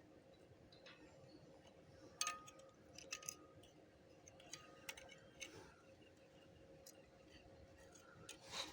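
Near silence broken by a few faint, sharp metallic clicks and clinks, scattered about two to five seconds in, some leaving a brief ringing note.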